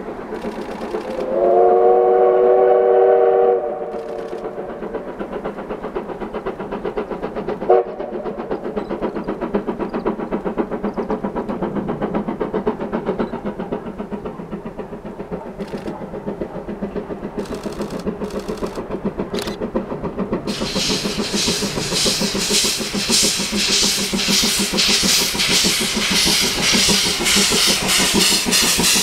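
Steam locomotive sounding its chime-like whistle for about two seconds just after the start, then working steadily toward the listener with a rhythmic exhaust beat that grows louder. In the last third a loud hiss of steam, blowing from around the cylinders, rides on the beats as the engine draws close.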